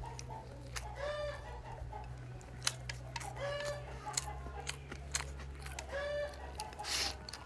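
A chicken calling three times, each a short pitched note a couple of seconds apart, over scattered soft clicks of a person chewing food.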